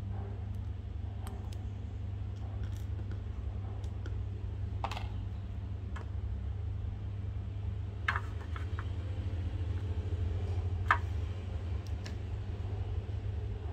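Scattered light clicks and handling noises, with sharper ones about five, eight and eleven seconds in, over a steady low hum.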